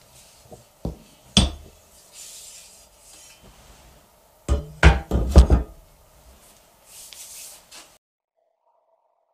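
Wooden knocks and clacks as the soba knife and tools are handled and set down on the wooden noodle board. There is a knock about a second in, a louder one just after, then a quick cluster of loud knocks midway, with soft brushing sounds in between.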